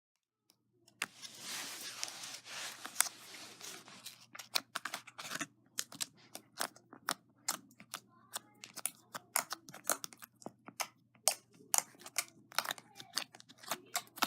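Homemade slime being squeezed and kneaded by hand: a crackly, squishing stretch, then a long run of sharp, irregular pops and clicks as air pockets in the slime burst.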